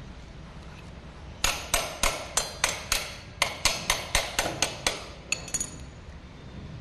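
Hammer strikes: about fifteen sharp taps, roughly four a second, in two runs with a short break about halfway, each ringing briefly.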